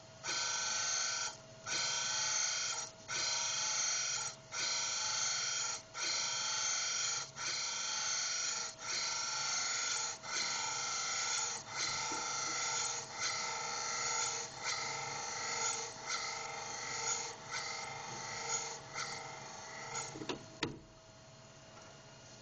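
Cam grinder's abrasive wheel grinding a lobe of a SOHC VTEC camshaft on the rough hogging cut: a harsh grinding hiss in repeated passes, with short breaks about every second and a half that come closer together near the end, stopping about twenty seconds in. A steady machine whine runs underneath.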